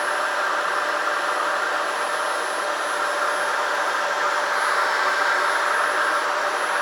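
Vacuum cleaner running steadily: an even motor whir with a steady whine in it.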